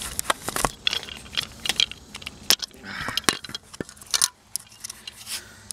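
Irregular clicks and light rattles of rubber spark plug wire boots and a plastic distributor cap being handled, as a plug wire is pulled off and pushed onto a new distributor cap.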